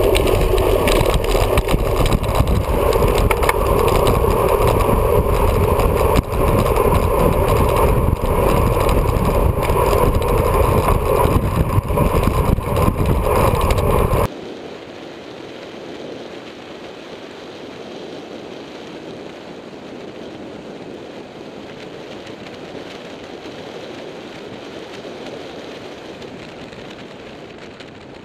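Wind rushing and buffeting over a bike-mounted camera's microphone on a fast downhill run. The noise is loud at first, then drops abruptly about halfway through to a quieter, steady rush.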